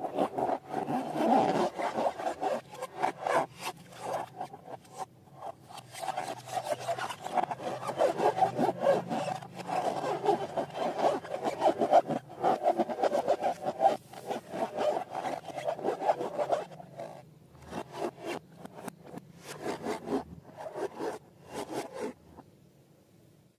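Slime being squeezed and worked by hand, a dense run of quick crackling clicks that thins out into scattered clicks near the end.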